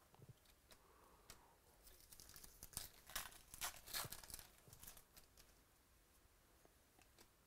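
A trading card pack's wrapper being torn open and crinkled in the hands: a run of sharp crackles and tearing, loudest about three to four seconds in.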